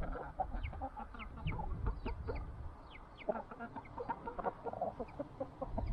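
Chickens clucking, with a steady run of short, high, falling peeps several times a second.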